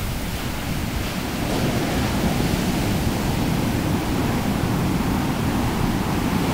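Large ocean waves breaking in the shorebreak: a steady rush of churning white water.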